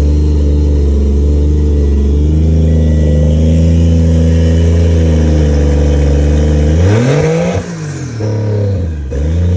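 Car engine idling steadily, then revved twice near the end, its pitch climbing and falling back each time.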